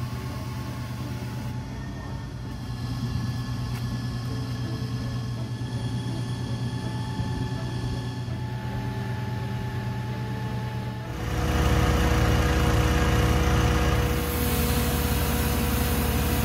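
Water-well drilling rig's engine running steadily. It grows louder about eleven seconds in. Near the end a hiss of water gushing from the well casing joins it.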